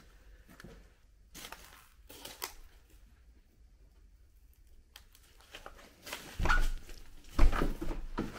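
Footsteps crunching and scuffing over broken ceiling panels and rubble, a few light steps early, then two heavier crunching steps with dull thuds in the second half.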